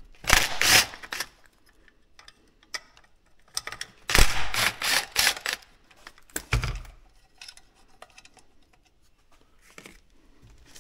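Handling noise as a quad's stator and its wires are moved about on a workbench: three bursts of rustling and clicking, about half a second in, a longer one about four seconds in, and a short one a couple of seconds later.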